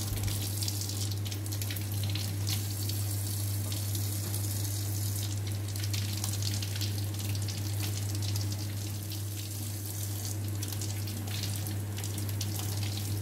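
Kitchen tap running steadily into a stainless steel sink as peeled shrimp are rinsed under the stream by gloved hands, with a steady low hum underneath.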